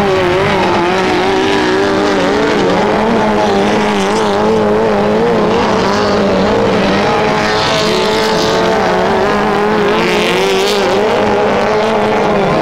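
Several autocross race cars running hard on a dirt track, their engines revving high, with the pitch rising and falling continuously as they slide through the corner and change gear. Two brief hissing rushes break through about eight and ten seconds in.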